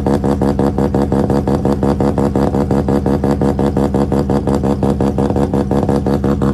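Car engine idling with a steady, rapid pulse, about seven beats a second.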